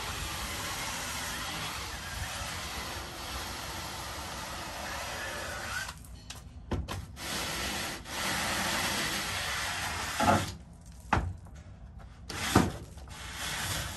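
Drill-powered scrub brush spinning against a soapy carpet floor mat, a steady scrubbing whir. From about six seconds in it goes in short on-off bursts, with a few brief louder surges near the end.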